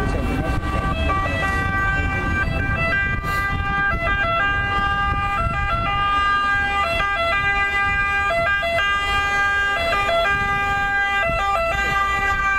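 Ambulance two-tone siren, alternating between a high and a low note, over a low rumble.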